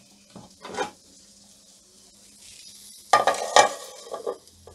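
Aluminium pressure cooker lid being opened and lifted off: a metal knock under a second in, then a louder cluster of clanks and scrapes about three seconds in, and one more shortly after.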